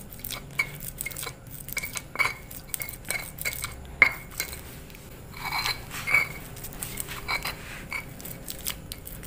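Stone pestle grinding a soft, wet paste of turmeric, garlic and rice in a stone mortar (cobek and ulekan): irregular scraping and knocking of stone on stone with light clinks, one sharper knock about four seconds in.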